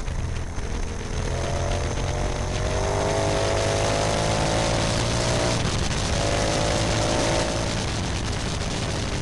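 Motorcycle engine running hard on the road. Its note climbs from about a second in, dips briefly about halfway, climbs again and eases off near the end, over a steady rush of wind noise.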